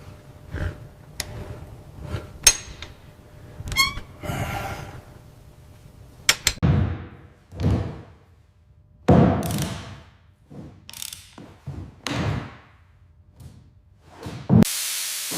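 An irregular series of thunks and knocks, about one a second, some followed by a short ring.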